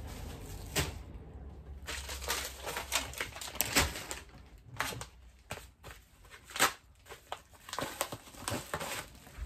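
Plastic packaging being handled: crinkling and rustling with irregular sharp crackles, the loudest about four seconds in and again near six and a half seconds.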